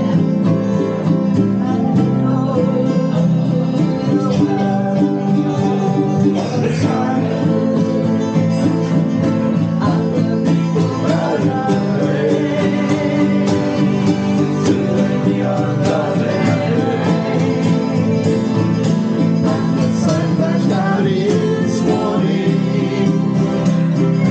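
Country-style acoustic music with plucked guitar, playing steadily.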